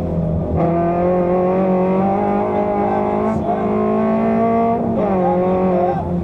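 Fiat Seicento rally car's engine heard from inside the cabin, pulling hard at speed. Its pitch climbs slowly, then drops sharply about five seconds in.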